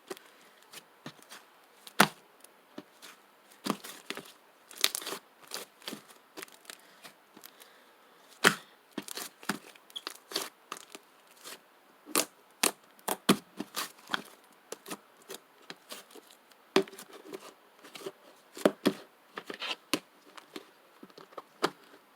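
Sticky slime being squished and stretched by hand, giving irregular sharp clicks and pops.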